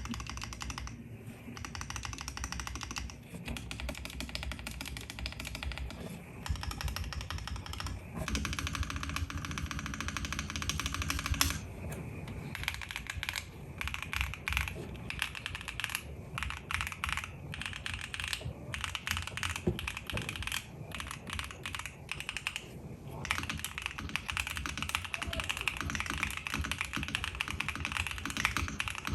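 Fast typing on a James Donkey RS2 4.0 gasket-mounted mechanical keyboard with Jam Ice Cream switches and an FR4 plate: a dense run of key clacks that stops briefly every few seconds.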